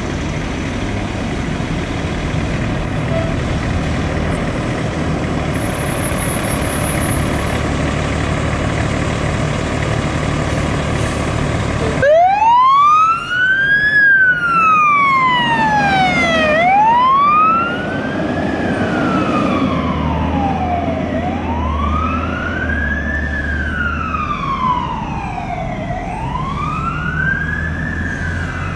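A KME fire engine's diesel engine runs steadily. About twelve seconds in its siren starts, wailing up and down in long sweeps about every five seconds as the truck pulls out, with the engine rumble swelling under it.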